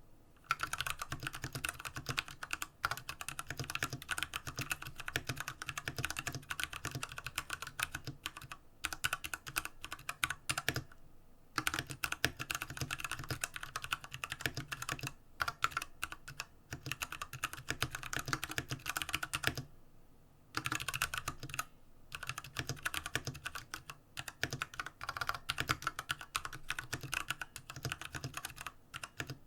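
Fast continuous typing on an IQUNIX F96 mechanical keyboard with Cherry MX Brown tactile switches, a dense run of key clacks with brief pauses twice.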